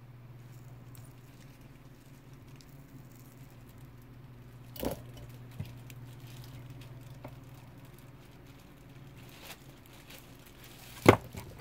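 Handling noise of a cordless drill battery pack being fitted into its red plastic housing: a few small clicks about five seconds in and one louder sharp plastic click near the end, over a faint steady low hum.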